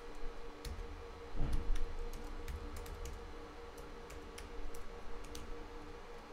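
Computer keyboard being typed on: a run of irregular key clicks, over a faint steady low hum.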